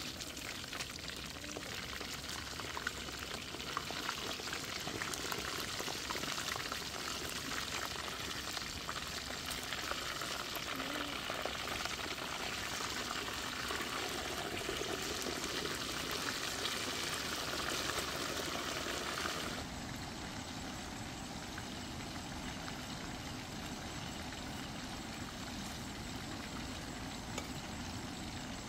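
Whole fish deep-frying in hot oil in a wok, a dense steady sizzle and crackle. About two-thirds of the way through it drops abruptly to a softer, duller sizzle.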